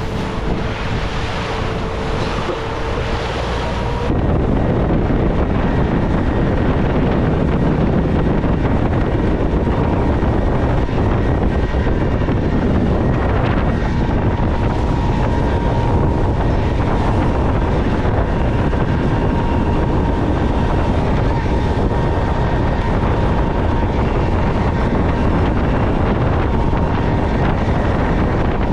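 Speedboat under way at speed: its Honda outboard motor running steadily, with wind buffeting the microphone and water rushing past the hull. The sound steps up sharply about four seconds in and then holds steady.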